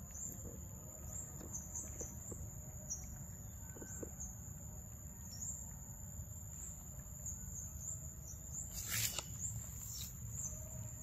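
Young macaque eating a ripe mango: faint wet smacking and small clicks of its mouth on the soft flesh, over a steady high insect drone. A few louder crackles near the end.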